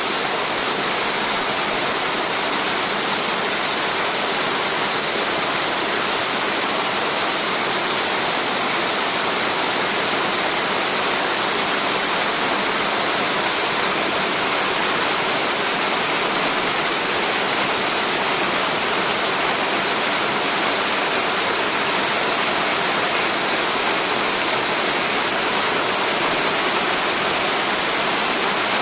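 Multi-tier cascade waterfall pouring steadily, a constant hiss of falling water that does not change.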